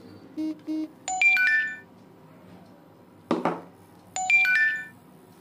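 Phone ringtone: two short buzzy beeps, then a bright ringing chime of several tones that dies away. The chime sounds again about three seconds later. Between the two chimes comes a single knock of a screwdriver set down on the wooden table.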